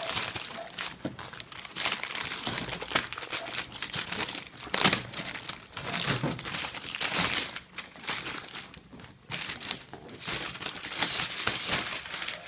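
Black plastic wrapping crinkling and rustling as hands pull it off a cardboard box, in irregular handling crackles with a louder crackle about five seconds in.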